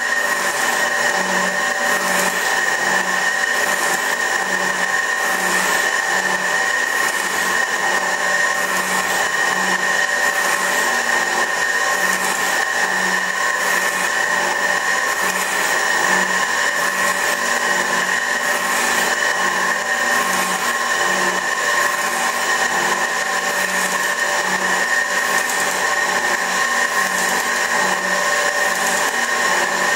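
A 24-inch Värnamo metal shaper running as it planes a surface, giving a steady mechanical whine with a regular low pulse from the ram's strokes.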